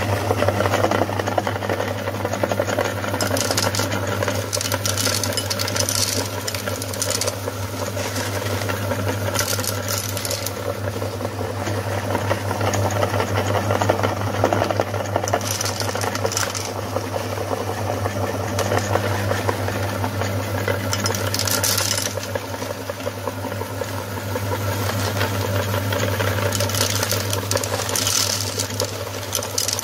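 Electric meat grinder's motor running with a steady hum while it grinds M&M candies, with bursts of crunching and rattling every few seconds as the hard candy shells are crushed.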